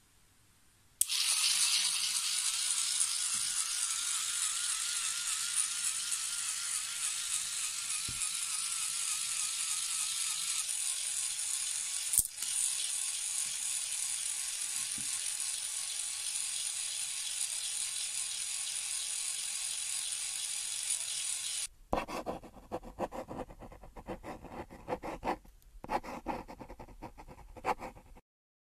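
Small DC gear motors of a homemade seed sheller, with sandpaper-wrapped rollers on a 9-volt battery, switched on about a second in and running with a steady high whine, with sunflower seeds rattling between the rollers as they are cracked. The motors cut off abruptly about three quarters of the way through, and a stretch of irregular clicking follows.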